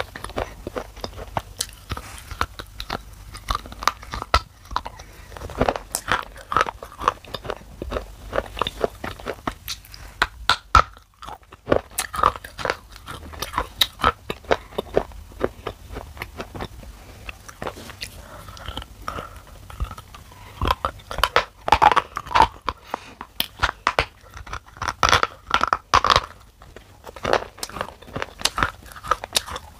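A person chewing black shale clay, with sharp crunching and crackling picked up close by a lapel microphone. The crunches come in thick clusters about two-thirds of the way through.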